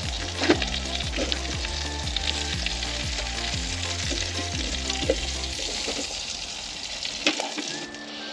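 Food sizzling and frying on a barbecue hotplate, a steady crackling hiss. Background music with a repeating bass line plays under it and drops out about five and a half seconds in.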